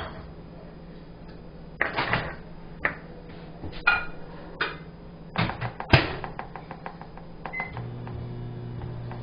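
A few knocks and clinks of a can and utensils being handled, then a short keypad beep and a microwave oven starting up with a steady low hum near the end, softening butter.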